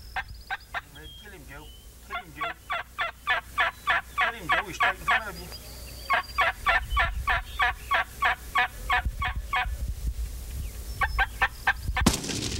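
Turkey calling: runs of rapid, evenly spaced yelping notes, about four a second. About twelve seconds in, a single loud shotgun shot.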